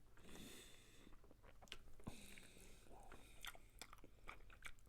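Faint, close-up chewing and wet mouth sounds with scattered small clicks, from a person eating ramen noodles with tuna.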